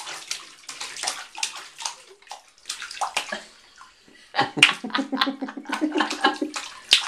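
A baby slapping the bathwater hard with her hands in a plastic infant bath, a quick run of smacking splashes. The splashes thin out briefly just before the middle, then come back loud and fast.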